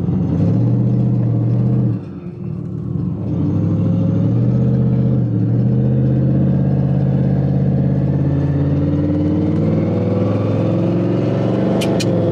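Twin-turbo 2023 Ford F-150 engine pulling steadily while driving, heard from inside the cab. Its level dips briefly about two seconds in, and its pitch climbs slowly toward the end, with a couple of sharp clicks near the end.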